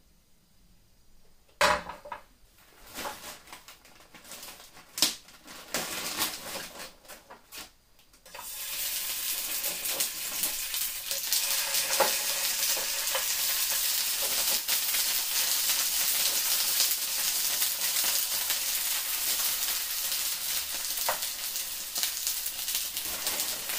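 A frying pan is knocked down onto a burner grate, with a few clatters. About eight seconds in, loud sizzling starts suddenly and keeps on steadily as dumplings are laid into the hot pan.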